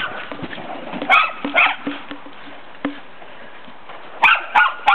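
Dogs barking: two short barks about a second in and three quick ones near the end, with a horse's hoofbeats among them.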